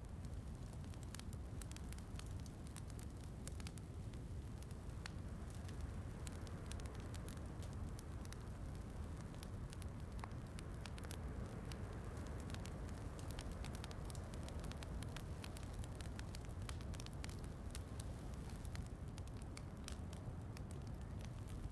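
Wood fire crackling in a fireplace: frequent sharp pops and snaps over a steady low rumble, with a soft, even rain hiss underneath.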